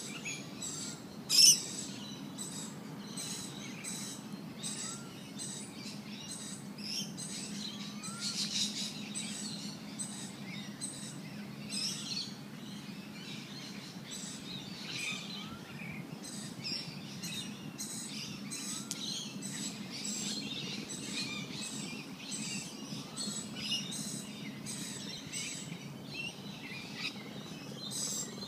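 Many small birds chirping and tweeting in a dense high chatter, with a short rising whistle that comes back every few seconds and a steady low hum beneath. One sharp click stands out about a second and a half in.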